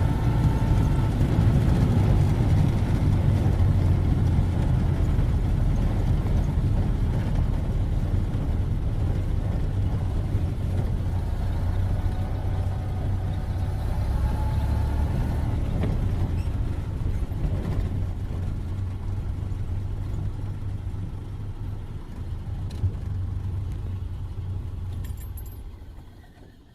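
1931 Ford Model A's four-cylinder flathead engine running as the car is driven: a steady low drone with a faint whine that comes and goes. The sound dies away near the end.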